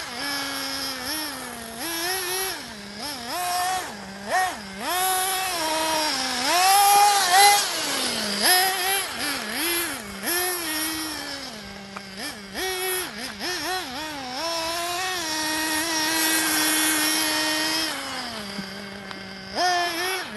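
Serpent Cobra 811 nitro buggy's Novarossi pull-start engine revving up and down as the buggy is driven, a high buzzing whine that rises and falls over and over. It holds steady for a couple of seconds, drops to idle, and revs up again near the end.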